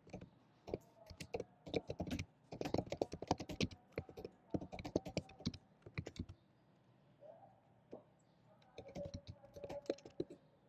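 Typing on a computer keyboard: a quick run of keystrokes for about six seconds, a pause of about two seconds, then a second shorter run near the end.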